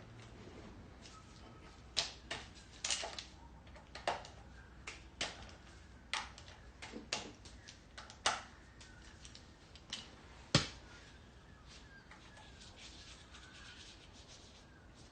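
Sharp, irregular metal clicks and clinks from hand tools working on a small engine's bolts and parts, about one a second. They stop after a loudest click about ten and a half seconds in.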